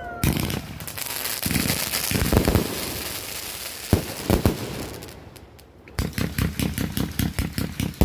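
Master Rage consumer firework going off: a dense hissing, crackling spray with a few louder pops that dies away about five seconds in. About a second later comes a rapid string of sharp cracks, several a second.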